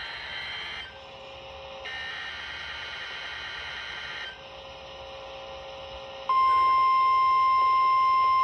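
Hissy weather-radio reception with faint steady tones, the noise shifting a few times. About six seconds in, a loud, steady single-pitch alarm tone starts and holds: the NOAA Weather Radio 1050 Hz warning alarm, sounded for the weekly test.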